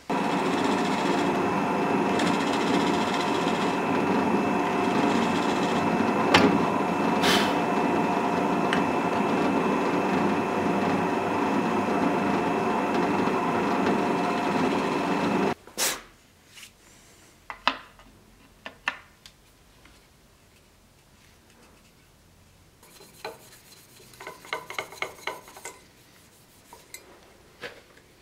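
Drill press running and drilling into a wooden sword scabbard, a steady motor sound that cuts off suddenly about halfway through. After it come a few knocks and clicks and a short quick run of scraping strokes as steel scabbard fittings are handled on the bench.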